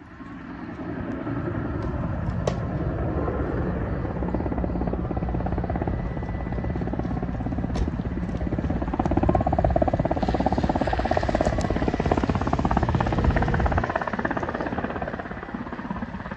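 Firefighting helicopter's rotor chop passing close, a rapid steady beat that grows louder toward the middle and fades near the end.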